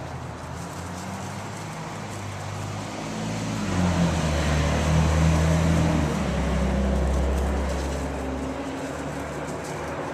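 A motor vehicle's engine hum swelling about four seconds in and fading away again, as of a vehicle going by.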